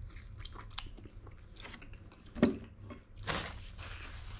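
Close-up mouth sounds of a rambutan being eaten: wet chewing and small clicks, with one sharper knock about halfway through.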